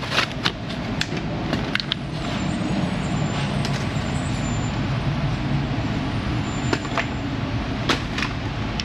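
Steady low mechanical hum of running machinery, with a few sharp clicks and knocks, the clearest about seven and eight seconds in.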